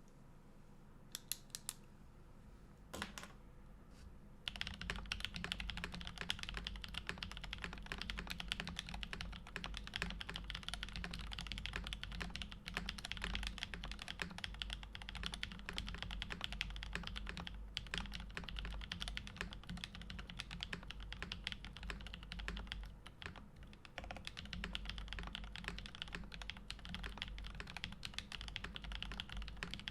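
Typing on a custom mechanical keyboard with a stacked acrylic case, lubed and filmed Kinetic Labs Husky linear switches and GMK keycaps, giving a deep sound. A few single keystrokes come first, then steady fast typing from about four seconds in, with a brief pause near the end.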